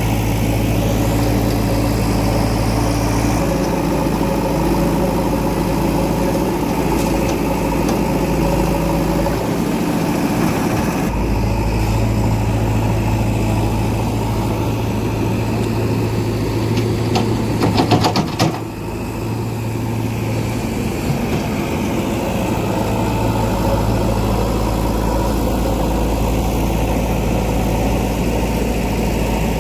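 Diesel engine of heavy farm or earthmoving machinery running steadily, its note shifting a few times as the load changes, with a short burst of clattering knocks about two thirds of the way in.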